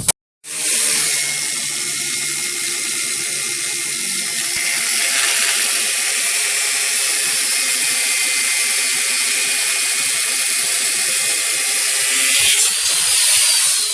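Angle grinder cutting through a car's coil spring: a steady, loud hiss of disc on steel with a thin high whine, changing near the end.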